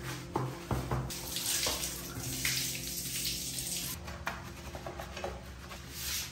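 Wet sponge scrubbing a plastic toilet seat and a ceramic toilet bowl through soapy lather, a swishing, rubbing noise that comes in stretches. A few light knocks in the first second.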